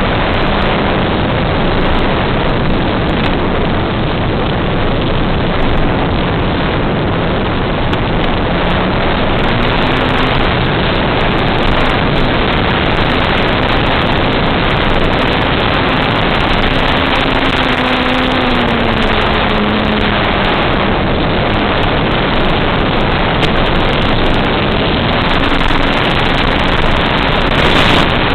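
Onboard sound of a radio-controlled FPV airplane in flight: a loud, steady rush of propeller, motor and wind noise. A faint motor tone rises and falls with the throttle, most clearly about two-thirds of the way through.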